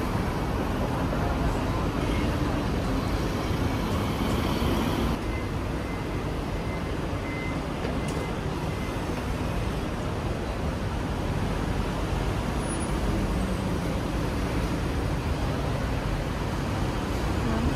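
Steady city street traffic noise, a low rumble of road vehicles, easing a little after about five seconds.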